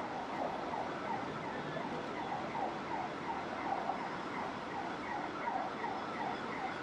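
Street ambience: a steady hum of traffic and city noise with a short falling chirp repeated about three times a second.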